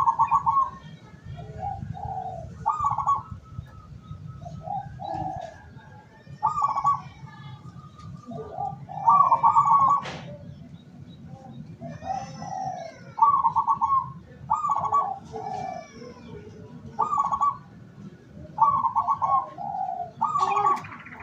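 Zebra doves (perkutut) cooing: rolling, trilled coo phrases repeated every second or two. Fainter high chirps of small birds run above them, and there is one sharp click about ten seconds in.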